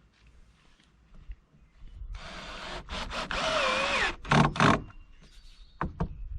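Cordless drill driving a screw into wooden trim: about two seconds in, a two-second run with a wavering motor whine, then two short, louder bursts as the screw is driven home.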